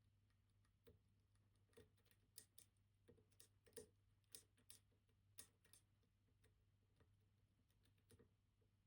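Faint, irregular small clicks of a lock pick lifting the levers of a MIWA PR lever lock under a tension wrench, over a low steady hum. The clicks bunch up in the first half, about a dozen in all.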